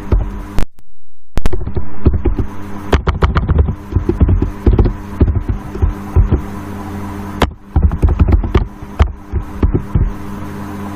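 Steady electrical mains hum and buzz with irregular crackles and low thumps, typical of a disturbed microphone plug in a computer's audio jack. It cuts out completely for about half a second, about a second in.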